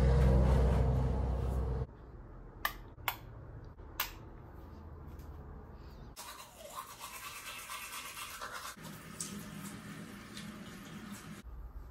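Morning bathroom-routine sounds: a loud low rumble for the first two seconds, three short clicks, then steady scrubbing like tooth-brushing and a bathroom tap running into the sink.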